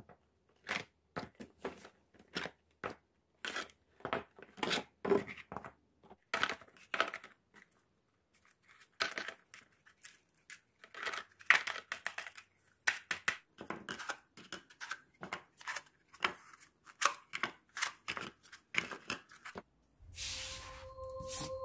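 Small plastic plant pots and dry moss potting mix being handled with gloved hands: irregular rustling, crinkling and light plastic clicks in quick clusters with short pauses. Near the end, soft music with two steady tones comes in.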